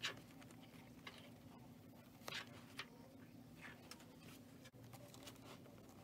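Faint handling sounds of a zipper being pinned to a leather bag: a few light clicks and rustles of the zipper tape, leather and metal safety pins, over a low steady hum.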